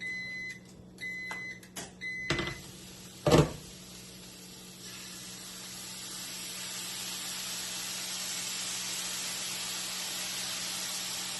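Three short electronic beeps in the first two seconds, a sharp knock about three seconds in, then a steady hissing sizzle from the hot pan that builds up and holds.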